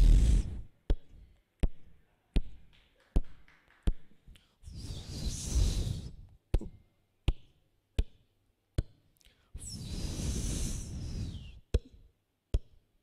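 Vocal mimicry of a fireworks display, made with the mouth into a microphone: three long hissing bursts, two of them with a falling whistle on top, and between them sharp firecracker pops about three-quarters of a second apart.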